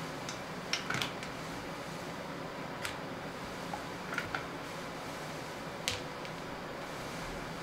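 Steady quiet room hiss with a handful of light, sharp clicks scattered through it, the clearest about a second in and near six seconds.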